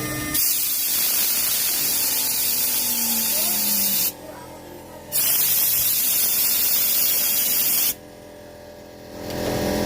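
Compressed-air blow gun hissing in two long blasts with a short pause between, blowing chips and coolant off the milled stainless-steel part in a CNC mill; the machine's quieter running hum comes back near the end.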